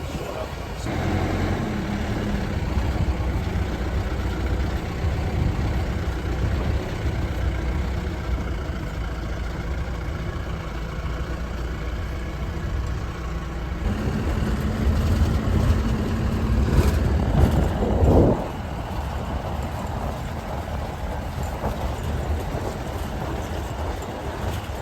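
Motor vehicle engine running with steady traffic or road noise, edited in short segments. A louder rising surge comes about three-quarters of the way through.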